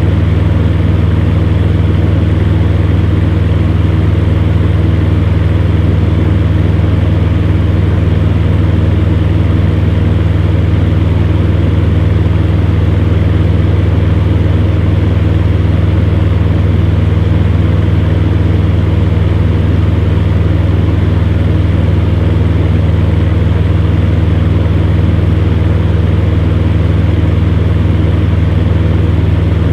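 Electric fan running steadily: a deep, even hum with a constant airy rush over it, unchanging throughout.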